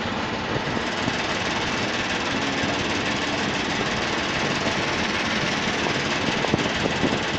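Steady engine rumble and vibration of a tour ship under way, heard from its open deck.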